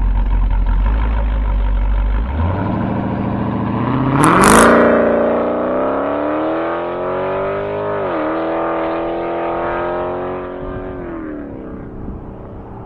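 Dodge Durango R/T's cammed 5.7 Hemi V8, with long-tube headers and a Borla exhaust, accelerating hard: a low rumble rises steeply in pitch about two seconds in, a brief loud burst of noise comes near four seconds, and the revs drop at a gearshift about eight seconds in before climbing again. Near the end the engine note falls away as the throttle is lifted.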